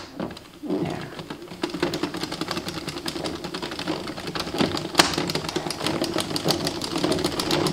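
Addi Express circular knitting machine being cranked by hand: a fast, even run of plastic clicks as the needles ride up and down in the turning cam ring, starting about half a second in.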